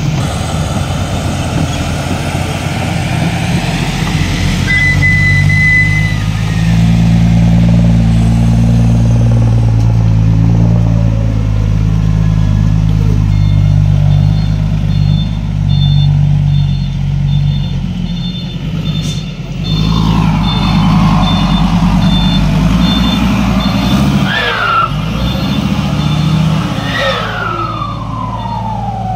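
Heavy diesel dump truck engine running hard and revving under load, its exhaust loud. A rapid high beeping sounds through the second half, and a few falling whistles come near the end.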